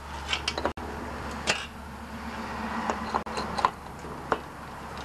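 Light metallic clicks and knocks from a Honda minibike's magneto flywheel being worked by hand onto its crankshaft and key. A few scattered clicks over a steady low hum.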